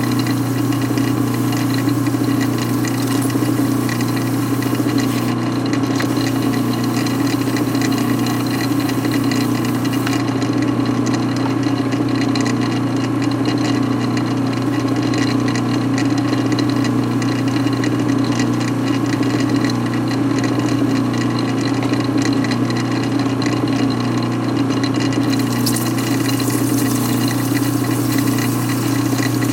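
An electric motor runs steadily with a low hum while the spinning piston is sanded with 1500-grit paper. A scratchy hiss from the sanding sits above the hum, fades out about a third of the way in and comes back near the end.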